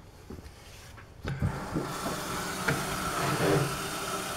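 Tap water running from a kitchen faucet into a plastic gallon jug, starting about a second in and then running steadily as the jug fills.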